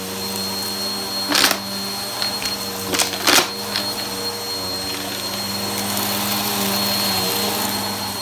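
Bissell upright bagless vacuum cleaner running steadily while pushed over carpet: a constant motor hum with a thin high whine. A few sharp clicks cut through it, one about a second and a half in and two close together around three seconds in.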